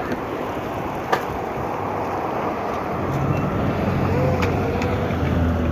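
Strong wind rushing over the microphone with road traffic, and a vehicle's engine hum that comes up about halfway through and grows louder.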